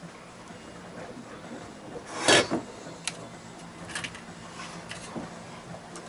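Galley handling noises: one short rasping scrape about two seconds in, then a few light clicks and knocks, over a faint steady low hum.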